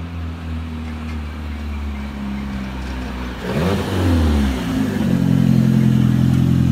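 Old Toyota sedan drift car's engine running as it comes down the road, then revving up sharply about three and a half seconds in as it swings past close, and held loud at high revs from about five seconds in as it slides with the tyres smoking.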